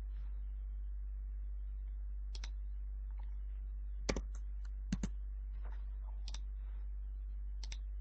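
Computer mouse buttons clicking, about six scattered clicks, some in quick pairs, as circles are placed in CAD software, over a steady low electrical hum.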